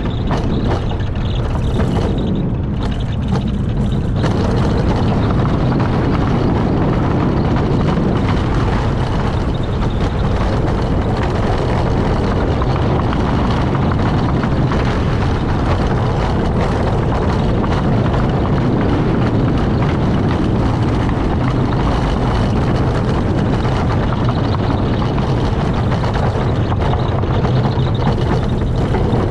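Rocky Mountain Construction wooden roller coaster train running at speed through its layout: a constant rush of wind over the mounted camera mixed with the rumble of the wheels on the track. The wind hiss briefly eases about two seconds in.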